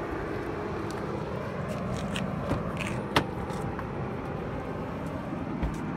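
Car door being opened: a few light clicks, then a sharp latch click about three seconds in, over steady outdoor noise.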